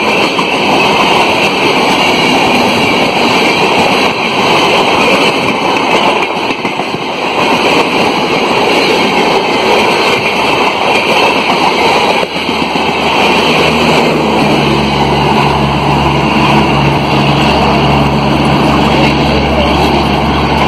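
Express passenger train coaches speeding past at close range: a loud, steady rush and clatter of wheels on the rails. About two-thirds of the way through, the rush thins and a steady low hum with a few held tones takes over.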